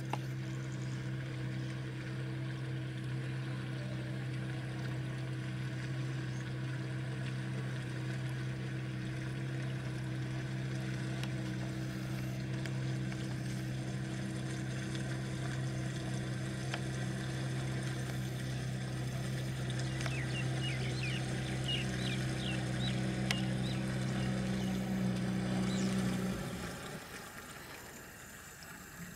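Outboard motor driving a small flat-bottomed boat, running at a steady, even hum with no change in pitch; the sound drops away sharply near the end.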